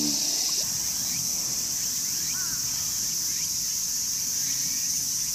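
Steady, high-pitched shrilling of a chorus of summer insects, unbroken throughout.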